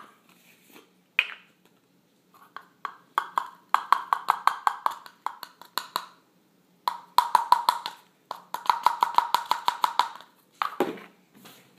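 A spoon stirring quickly in a paper cup, clicking against the side about eight times a second in three runs with short pauses between.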